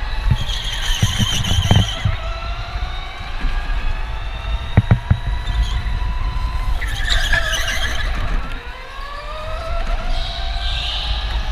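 Electric go-kart at racing speed: the motor whines, its pitch rising and falling as the kart speeds up and slows. Tires squeal through the corners, near the start, past the middle and near the end, with a few knocks from the chassis about one and five seconds in.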